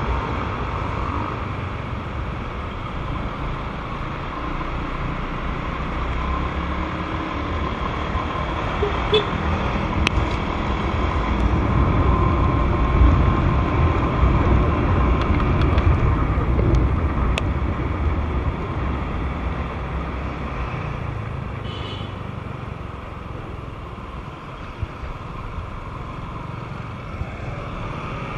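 Riding noise from a Honda Vario 125 automatic scooter's single-cylinder engine, with tyre and wind noise on wet tarmac and passing traffic. The rumble swells in the middle and eases off toward the end.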